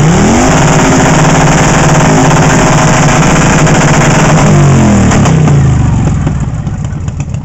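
Custom chopper motorcycle engine revved hard from idle and held at high revs for about four seconds, then let back down to idle, while its loudness is measured at the exhaust.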